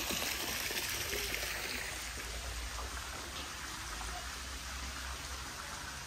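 Steady hiss of water with a low rumble underneath.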